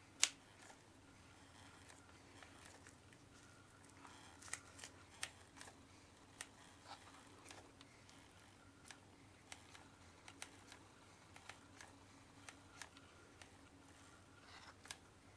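Faint scattered clicks and light taps of hands working small craft parts while hot-gluing, with one sharp click about a quarter second in, over a low steady hum.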